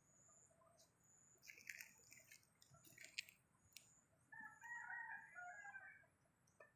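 A distant rooster crowing once about four seconds in, faint against near silence, with a few faint clicks before it.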